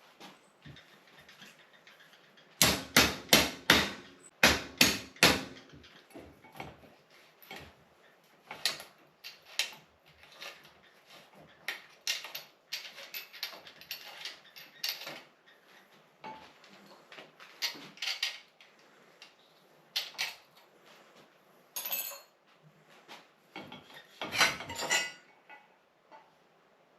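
Metal tools and bicycle parts knocking and clattering on a workbench: a quick run of about eight sharp knocks about three seconds in, then scattered single knocks and clinks.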